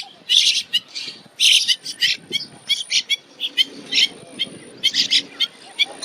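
Bank mynas calling: a busy run of short, harsh chirps and clucks, broken by a few longer screechy notes.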